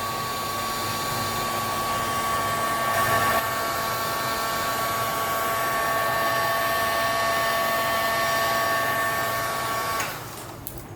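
Heat gun blowing steadily, with a steady motor whine, as it spreads white epoxy resin into lacing on an ocean-wave pour. It switches off about ten seconds in.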